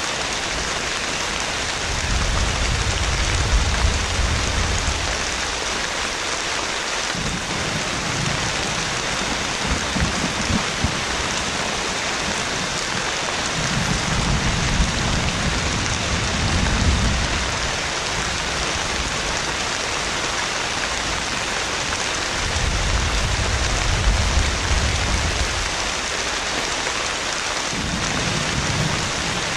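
Heavy rain pouring steadily, with low rumbles of thunder rolling in about five times, each swelling for a few seconds.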